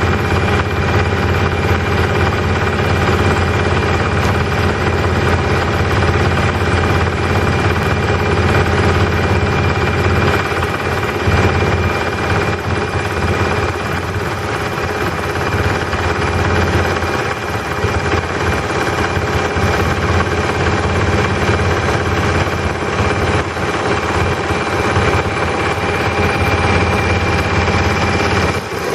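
Boat motor running steadily while the boat moves along the water, with an even, unbroken engine drone.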